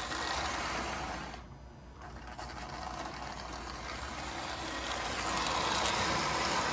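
Marx 333 die-cast 4-6-2 toy steam locomotive pulling passenger cars on three-rail tinplate track: electric motor whirring and wheels rattling on the metal rails. It briefly dips about a second and a half in, then grows louder toward the end as the train passes close by.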